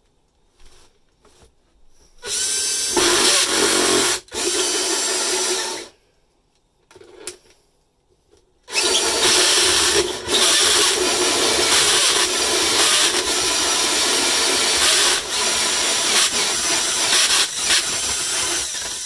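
Cordless drill driver spinning a Panasonic universal hole saw into plasterboard with wood backing behind it: two short bursts of cutting about two and four seconds in, a pause, then one long steady cut from about nine seconds in.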